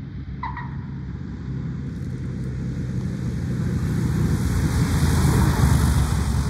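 Beechcraft Bonanza's six-cylinder piston engine and propeller running as the plane rolls along the runway toward and past the listener, growing steadily louder until it passes close near the end. A short chirp sounds about half a second in.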